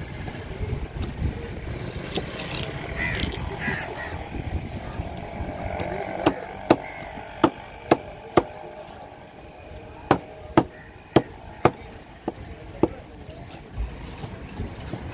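Heavy curved cleaver chopping through mackerel tuna into a thick wooden cutting plank: a run of sharp chops about two a second, starting around six seconds in, with a brief pause in the middle. Before the chops there is only a background of voices and traffic.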